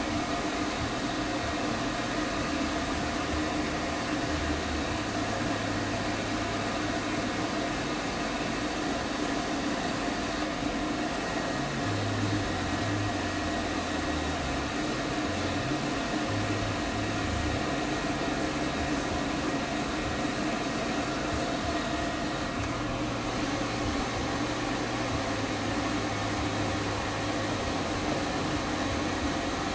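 Pet grooming stand dryer blowing steadily: a constant rush of air over a steady motor hum.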